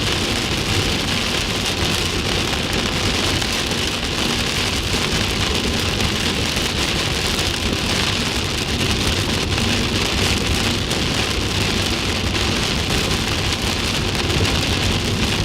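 Heavy rain falling hard on a car's roof and windshield, heard from inside the cabin as a dense, steady hiss over the car's low, constant road rumble.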